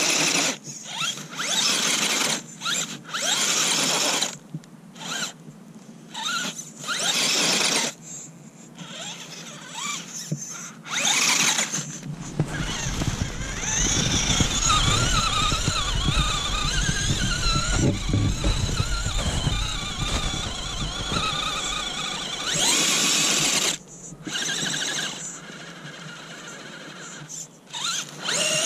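Axial UTB18 Capra mini RC crawler's electric motor and gears whining high-pitched in repeated throttle bursts with short gaps between, running on a 3S lithium battery. Through the middle stretch the whine holds longer and wavers in pitch, over a low rumble.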